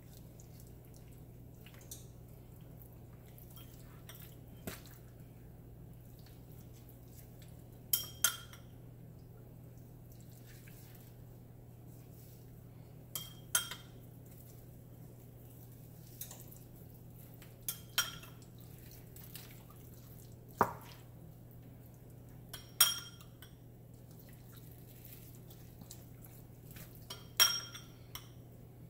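Metal spoon clinking against a small glass bowl while scooping out dry spice rub: sharp, ringing clinks every few seconds, often two in quick succession, over a low steady hum.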